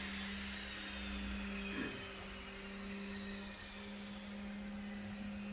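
Steady low electrical or motor hum, with faint high whining tones that slowly fall in pitch.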